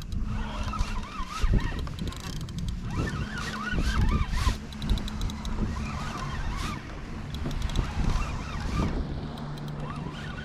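Wind buffeting the microphone on open water: a rough, uneven rumble with a steady low hum, wavering whistly tones and scattered light clicks.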